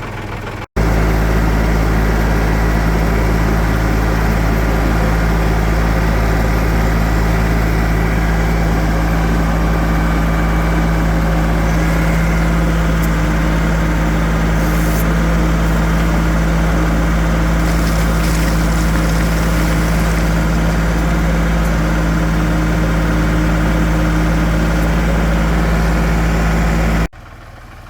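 New Holland TC33-D compact tractor's diesel engine running loud and steady at constant throttle. It starts abruptly just under a second in and stops abruptly near the end.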